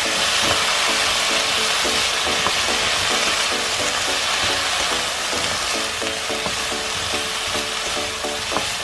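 Shishito peppers and dried anchovies sizzling steadily in a hot wok as a wooden spatula stirs and tosses them, with a few light taps of the spatula against the pan.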